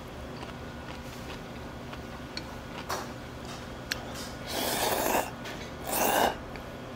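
A person eating: a few light clicks of utensils, then two loud slurps of noodles about a second apart near the end.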